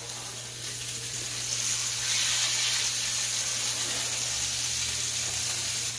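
Ground duck-and-venison burger patties sizzling steadily in a hot cast iron skillet, the sizzle swelling a little louder about two seconds in.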